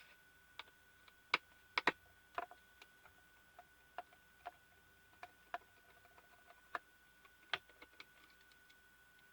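Irregular light clicks and taps of small tools and parts against the projector's plastic and metal housing during disassembly, with a few louder clicks among them. A faint steady high tone runs underneath.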